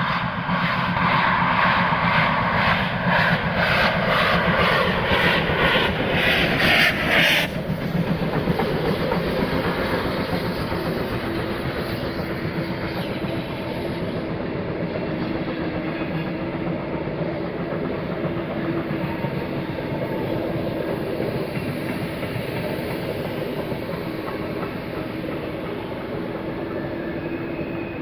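Steam locomotive 50 3501 running with a train. Even rhythmic beats go for the first seven seconds or so and stop suddenly, followed by a steady rumble of the train rolling on the rails with clickety-clack.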